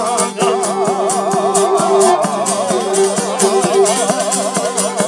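A man's voice sings one long held note with a wide vibrato over a steady rhythm of strummed, plucked strings, in a Serbian folk song.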